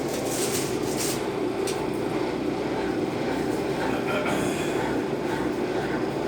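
Consul Facilite 10 kg (CWC10) washing machine running its wash stage after a mechanical overhaul, with a steady motor hum and churning.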